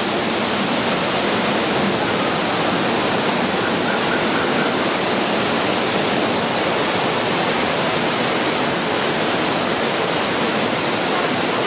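Waterfall rushing, a loud steady hiss of falling water that does not change.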